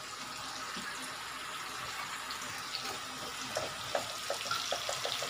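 Squash pieces sizzling in oil in a frying pan, a steady hiss. A few seconds in, a quick run of light clicks joins it.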